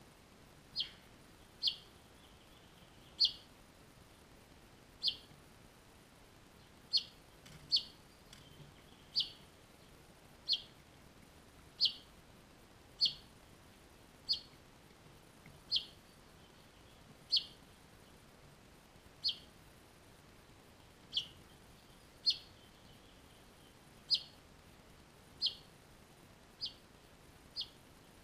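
Finch chirping: single short, high chirps repeated every one to two seconds, about twenty in all.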